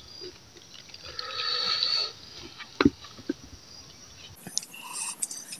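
Hand mixing cooked rice in an aluminium pot, with a couple of sharp clicks of fingers against the metal about three seconds in. About a second in there is a drawn-out pitched sound lasting about a second.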